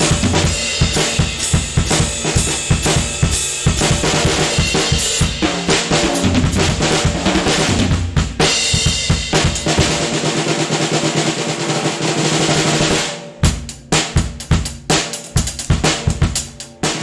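Drum kit being played: fast snare strokes and rolls over bass drum hits, breaking near the end into a few separate sharp snare hits with gaps between them.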